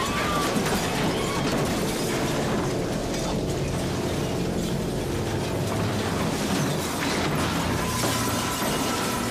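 Staged train collision: a dense, continuous crashing din full of sharp knocks and clatter of wreckage, with no let-up; a couple of steady tones come in near the end.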